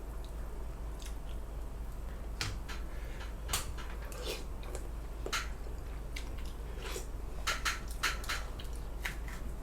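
Close-miked eating sounds: a person chewing a mouthful of soft glutinous rice, with scattered short wet clicks and smacks of the mouth and utensils.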